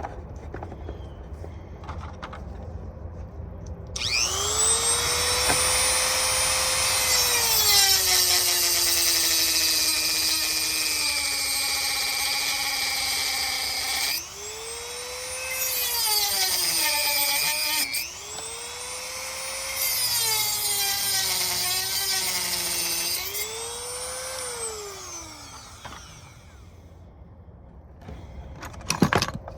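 Dremel rotary tool with a heavy-duty cutting wheel cutting through a chain link. Its high motor whine spins up about four seconds in, sags in pitch as the wheel grinds into the metal, and comes in three runs before winding down near the end.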